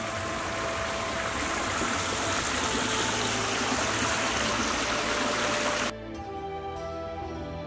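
A small woodland stream rushing over rocks, with soft background music underneath. The water sound cuts off suddenly about six seconds in, leaving only the music.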